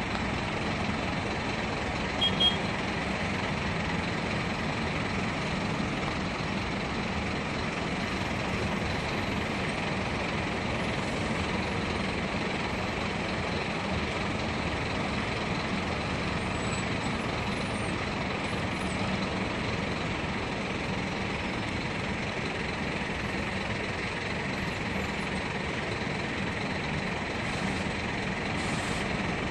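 Diesel engines of Marcopolo coach buses running at low speed as they manoeuvre in a terminal yard, a steady, even engine sound. A short double beep comes about two seconds in.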